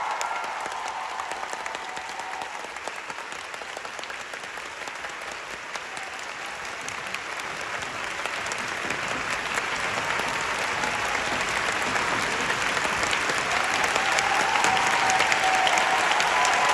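Theatre audience applauding, a dense crowd of clapping hands that grows steadily louder toward the end.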